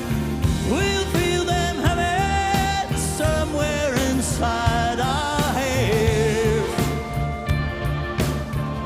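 Progressive rock band playing live in an instrumental passage: a lead melody bends and wavers over a steady rhythm of bass and drums.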